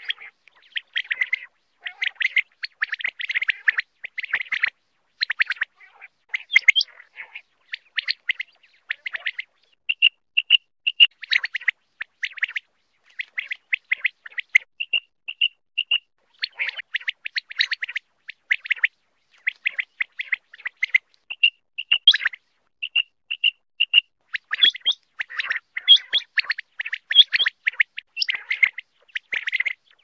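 Common quail calling: bursts of rapid high chirping notes throughout, with a clear three-note phrase, the male's 'wet-my-lips' song, repeated several times.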